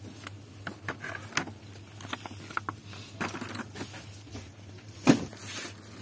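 Plastic blister packs being handled on metal display hooks: scattered crinkling and clicking, with one sharp clack about five seconds in, over a steady low hum.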